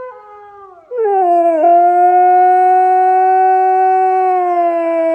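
Husky howling: a quieter howl sliding down in pitch, then, about a second in, a loud long howl held steady that falls slowly in pitch near the end.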